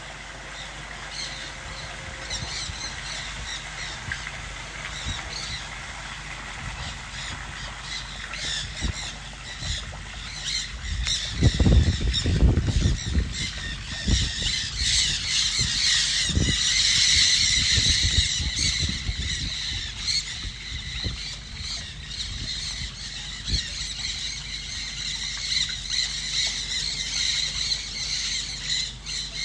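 A flock of birds squawking and calling over one another without a break, growing busiest and loudest a little past the middle. Low thumps and rumble come in a little after ten seconds.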